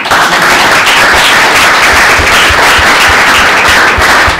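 An audience applauding, loud and steady.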